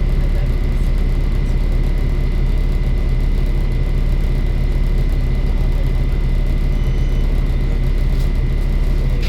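Volvo B7 bus's diesel engine running at a steady speed, a constant low drone with a thin, steady high-pitched whine over it.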